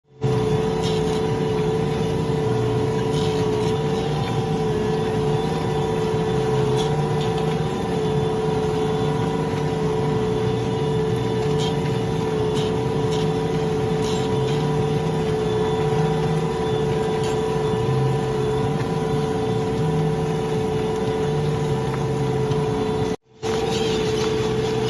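John Deere tractor engine running steadily under load while ploughing, with a constant whine over a low rumble. It cuts out for a moment near the end, then carries on unchanged.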